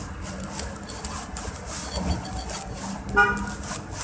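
Steady background noise with a low hum, and a short pitched toot about three seconds in.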